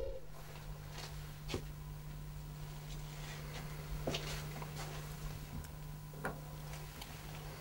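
A few light clicks and knocks as a plastic urine specimen container is handled, over a steady low hum in a small room.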